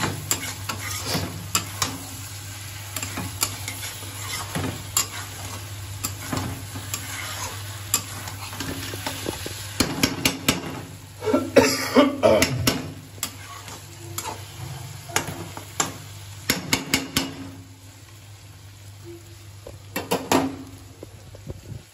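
Chicken pieces sizzling in oil and masala in a metal kadai while a metal spatula stirs them, scraping and clicking against the pan. The scraping is busiest and loudest about halfway through and thins out near the end.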